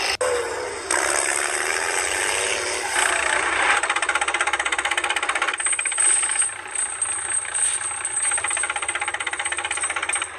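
Continuous mechanical rattling made of very fast, even ticks, broken off abruptly twice in the first second.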